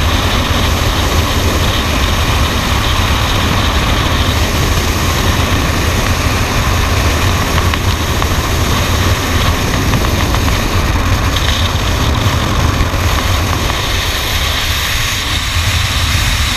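Wind rushing over a skydiver's camera in freefall: a loud, steady roar of air noise, easing slightly in its lower range near the end.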